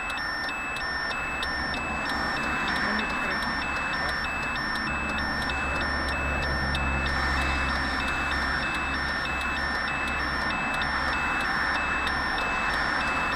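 Electronic warning beeps repeating at an even pace, heard over car cabin road noise and a low engine rumble that swells in the middle.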